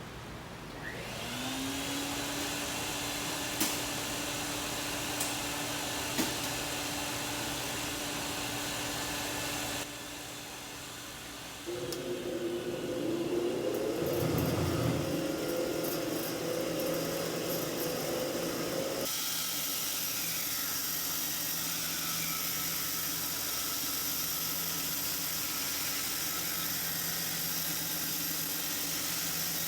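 Electric woodworking machines running. A motor spins up about a second in and runs steadily with a few light clicks, then stops near ten seconds. A second run starts with shifting pitch, as if working under load, and settles into a steady run for the rest.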